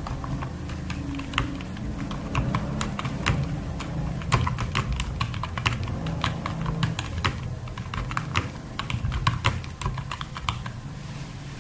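Fast typing on a computer keyboard: a rapid, uneven stream of key clicks, several a second, over a steady low hum.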